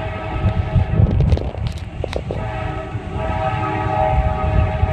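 Locomotive's multi-tone air horn sounding for the grade crossing as a train approaches, with a break of about two seconds in the middle before it sounds again, over a steady low rumble.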